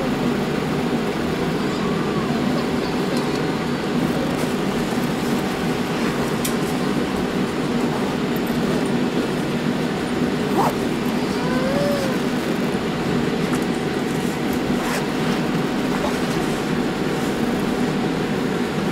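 Steady low rumble and hum inside the cabin of a Boeing 787-8 taxiing after landing, its engines at idle.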